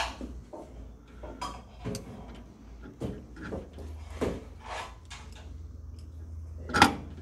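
Pliers and multicore cable cores being handled inside a metal switchboard enclosure: scattered light clicks and rustles, with one sharper, louder click near the end.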